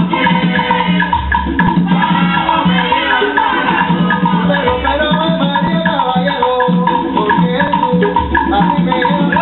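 Salsa music with a steady, evenly repeating percussion beat under melodic lines.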